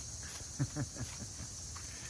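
Yorkshire Terrier moving and snuffling through dry leaves at a wood pile, with a quick run of short, low, falling grunts about half a second in, over a steady high chorus of insects.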